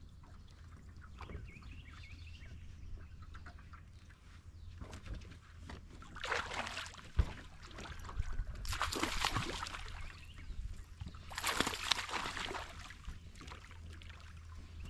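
A hooked bass thrashing and splashing at the surface beside the boat during the fight, in three bursts of splashing a couple of seconds apart, with a single sharp knock between the first two.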